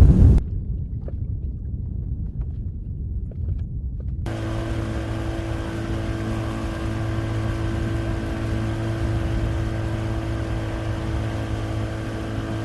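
A steady engine running, heard as a low rumble. About four seconds in, the sound abruptly becomes fuller and a constant hum comes through, unchanged to the end.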